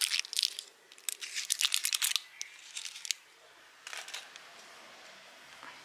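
Packaging of a military fuel tablet crinkling and tearing as the tablet is popped out by hand, in bursts through the first two seconds or so, then a few scattered rustles.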